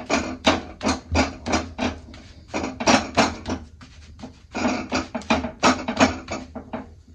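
Wooden rolling pin rolling roti dough on a board, back-and-forth strokes at about three a second.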